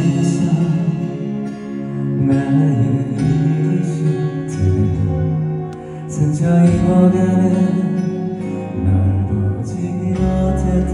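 A man singing a slow Korean ballad live into a microphone over instrumental accompaniment.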